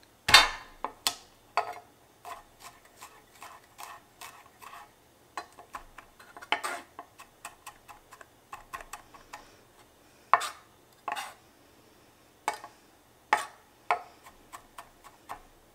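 Santoku knife chopping garlic on a wooden cutting board: irregular quick knocks of the blade on the board, with a few louder strikes among them.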